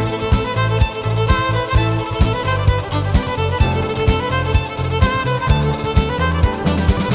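Background music led by a violin over a steady beat with bass.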